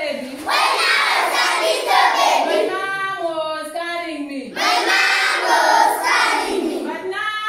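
A group of schoolchildren singing together in chorus, with a short break about halfway through before the next phrase.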